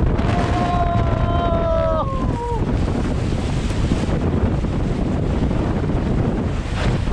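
Rushing water and wind buffeting the microphone as a tube rider slides down an enclosed water slide. About half a second in, a drawn-out pitched squeal is heard for about two seconds, dropping in pitch as it ends.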